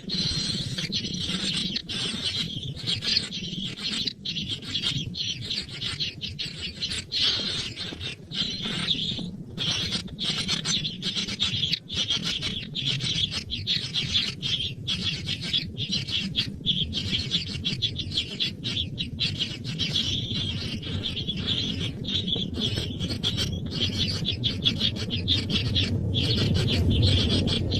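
Dense, continuous high-pitched bird chirping with a low rumble underneath that grows louder near the end.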